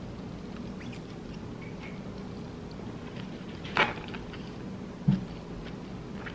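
Eating at a table: a spoon scrapes in a plastic takeout bowl about four seconds in, then a soft knock about a second later, with faint chewing over a steady low hum.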